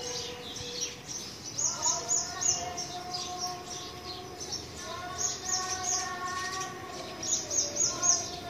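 A bird singing short phrases of four or five quick, high chirps, repeated three times. Underneath, a human voice holds long, steady notes that start with an upward slide.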